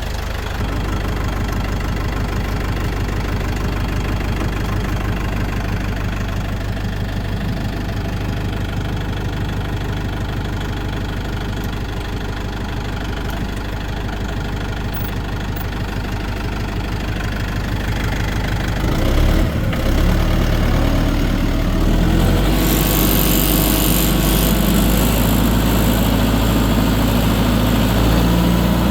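Tractor engine running steadily at idle. About two-thirds of the way through, the engine note changes and gets a little louder, and a hiss joins it as the tractor gets under way.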